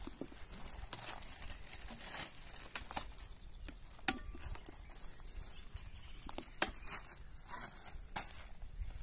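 Unpacking noises: plastic packaging crinkling and the rubber hose of a SUP hand pump being handled, with a few sharp clicks, the loudest about four seconds in, over a low rumble.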